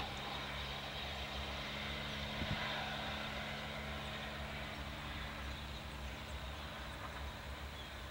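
Steady low mechanical hum with an even hiss over it, holding level throughout, with a faint tick about two and a half seconds in.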